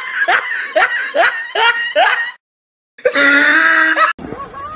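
High-pitched voice giving a quick run of short rising cries, about five in two seconds, then, after a brief break, one loud held cry that cuts off suddenly.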